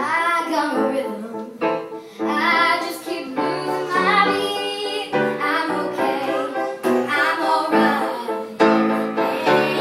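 A young girl singing a song into a microphone, with piano accompaniment.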